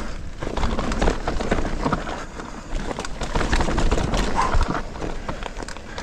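Mountain bike riding fast down a rough trail: a rapid, irregular clatter of knocks and rattles as the tyres, chain and suspension take the bumps, over a steady low wind rumble on the microphone.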